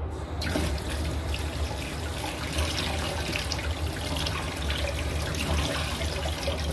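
Kitchen tap turned on about half a second in, water running steadily into the sink to wash broccoli.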